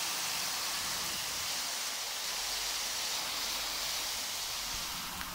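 Water spray from a handheld washing nozzle hitting a car's painted bodywork, a steady hiss.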